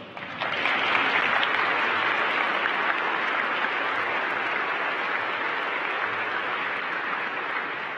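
Audience applauding: a dense patter of many hands clapping that swells about half a second in and slowly eases off near the end.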